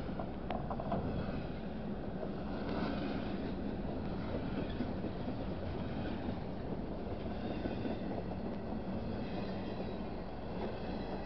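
Loaded intermodal well cars of a freight train rolling steadily past at close range. The wheels on the rails make a continuous low rumble, with no horn sounding.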